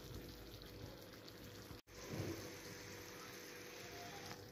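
Faint, steady bubbling of tomato sauce simmering in a clay tajine. It cuts out for an instant almost two seconds in.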